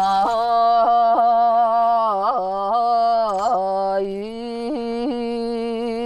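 A woman's solo voice in Sakha throat-singing style, holding long notes that are broken about half a dozen times by quick yodel-like catches in the throat.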